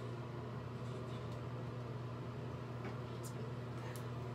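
Steady low mechanical hum, with a couple of faint short clicks near the end.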